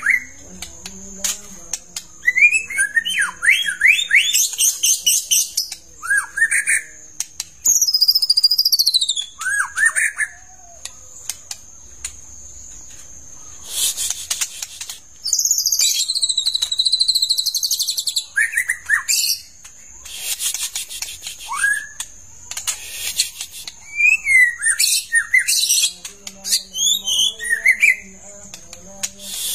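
White-rumped shama (long-tailed murai batu) in full song. Varied phrases of clear whistles that slide up and down alternate with harsh, rasping rattles, with short pauses between phrases.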